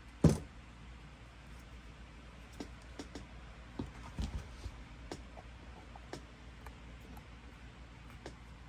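A single sharp knock just after the start, then scattered light taps and clicks with a soft thump about four seconds in: chipboard pieces and craft tools being handled and set down while a glued chipboard shelf is fitted into a hollowed-out book.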